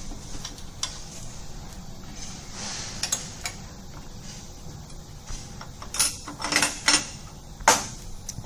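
Loose steel parts and hand tools clinking and clattering against the steel base plate of an ultrasonic welder as the welding fixture and its clamp bars are taken off by hand. There are a few light clinks at first, then a run of louder clinks in the last few seconds, the loudest shortly before the end.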